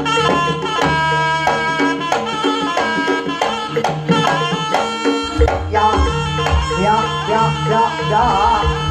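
Live East Javanese jaranan music accompanying a barongan dance: a reed wind instrument carries a sustained melody over hand-drum and metal percussion strokes. A deeper drum pattern comes in about five seconds in.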